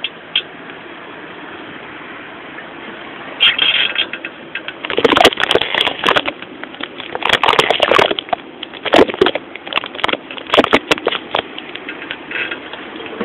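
Saltafoss bicycle with rear coil-over shocks rolling over rough pavement: a steady rolling noise broken by bursts of clattering and rattling as the rear wheel takes bumps, busiest from about five seconds in to near the end.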